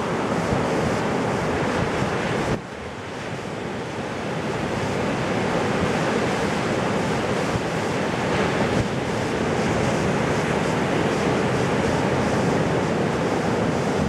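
Ocean surf breaking on a beach: a steady wash of waves, with wind buffeting the microphone. The sound drops suddenly about two and a half seconds in, then builds back up.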